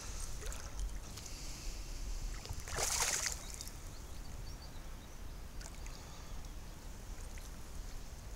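A fish splashing briefly at the water surface about three seconds in, over a low steady rumble.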